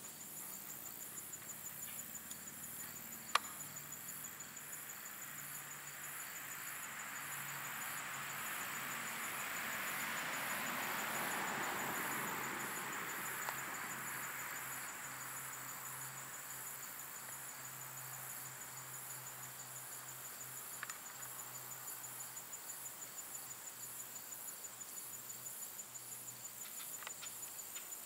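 A high-pitched insect chorus trilling steadily in a fast pulse. In the middle a soft rushing sound swells and fades over about ten seconds, and there is one sharp click about three seconds in.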